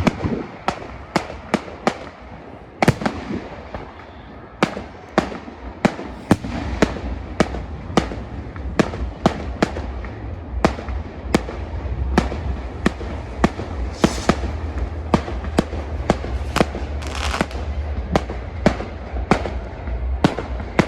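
Fireworks display: a rapid, irregular series of sharp bangs from bursting shells, one or two a second, over a low rumble.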